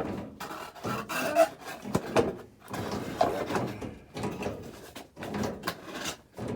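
Irregular rustling, scraping and light knocks of parts and tools being handled, with no steady rhythm.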